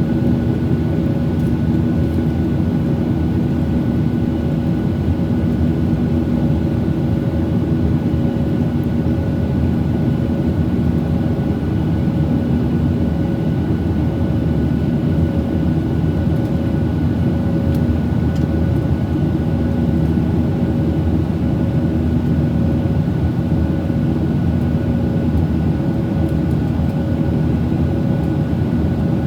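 Steady cabin noise of a Boeing 737-800 in operation, heard from inside the passenger cabin: an even rush of jet engine and airflow noise with a few steady hums running through it.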